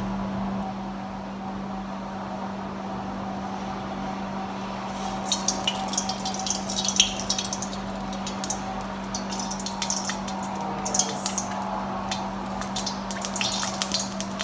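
Cooking oil poured from a plastic bottle into a deep stainless-steel wok: the stream splashes against the metal with many irregular small ticks from about five seconds in.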